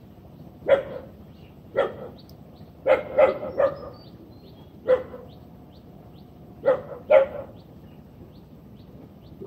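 A dog barking, about eight short barks in irregular groups of one to three, with pauses between.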